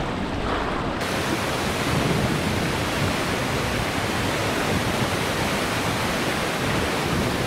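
Rushing water of a rocky mountain creek and its waterfall: a steady rush of water that turns brighter and hissier about a second in.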